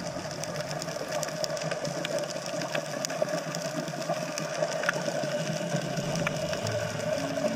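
A steady, engine-like hum with scattered sharp clicks and crackles.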